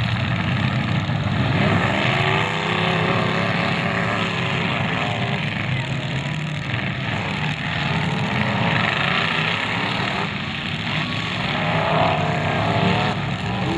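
Several demolition derby cars running at once, their engines revving up and down over one another in a continuous din as the cars ram and push against each other.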